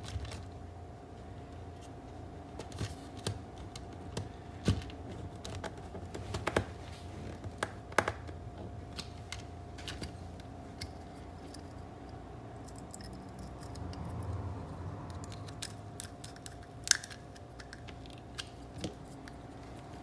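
Scattered small clicks, taps and rustles of electrical wires being handled and fitted into the screw terminals of a modular latching relay, with a screwdriver working the terminal screws. A faint steady tone runs underneath.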